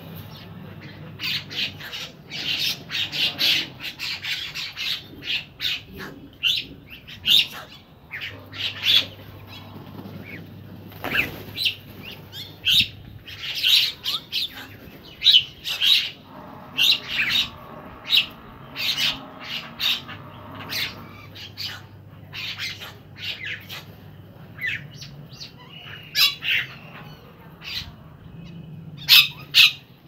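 A mixed flock of feeding birds, house crows among them, calling: a dense, continuous run of short, sharp chirps and squawks.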